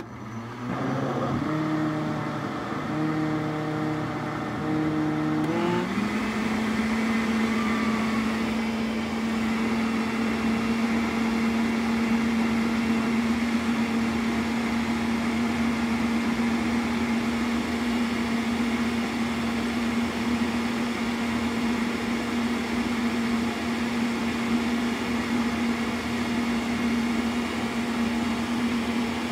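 Countertop blender switched on, blending a thick mixture of cream and sweetened condensed milk. For the first few seconds the motor's pitch wavers and dips; about six seconds in it steps up to a higher speed and then runs steadily.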